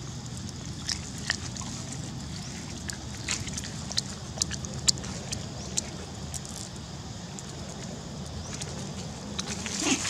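Baby monkey chewing and sucking on a small green fruit close to the microphone: irregular wet mouth clicks over a low steady hum.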